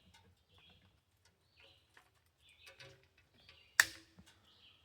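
Faint bird chirps, and one sharp snip near the end as a cutter goes through plastic maple sap tubing.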